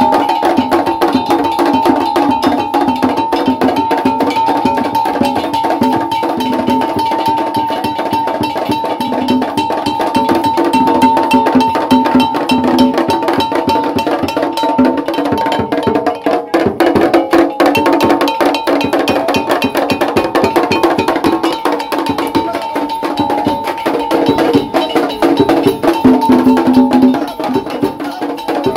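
Traditional Ga ceremonial percussion music: fast, dense drumming with sharp wood-block-like strokes, over a steady held tone.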